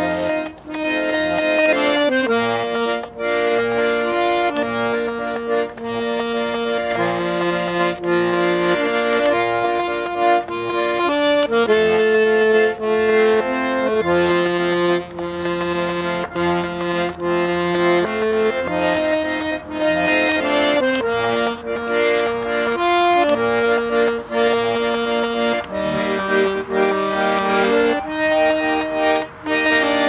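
Russian garmon (button accordion) playing a folk-style tune: held chords that change every second or two over a steady bass pulse.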